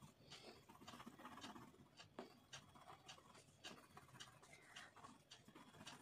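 Faint scratching of a wax crayon on thick paper, shading in short quick strokes, about three a second, to lay down a dense wax layer.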